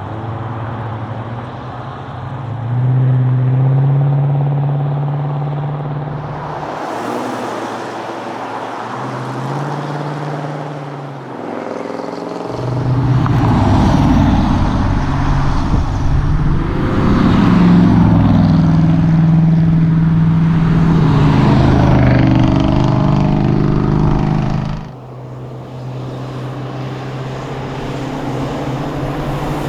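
Ford Mustang GT's V8 engine under way, the engine note rising and falling as it revs up and changes gear. The sound changes abruptly about a quarter of the way in, again near the middle and near the end. It is loudest in the hard-driven middle stretch.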